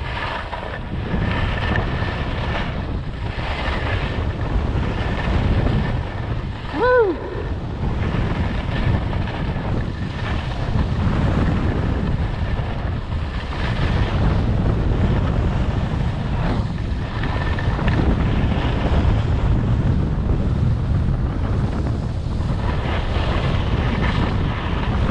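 Wind buffeting the microphone over skis rushing and scraping across snow on a run. About seven seconds in, a short pitched sound rises and falls, the loudest moment.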